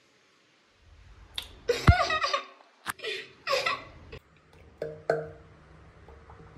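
A woman's short wordless vocal sounds, two brief bursts a second or so apart, with a few sharp clicks between them. A faint steady hum sets in near the end.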